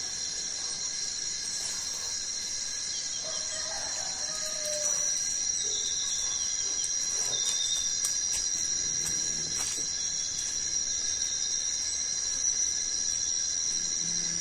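Tropical forest insect chorus: several steady high-pitched drones, one louder drone joining about five seconds in, with a short bird call about three to five seconds in.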